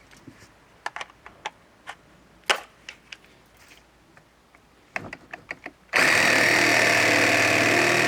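A few sharp clicks and knocks from handling, then about six seconds in a cordless reciprocating saw starts abruptly and runs at a steady, loud speed.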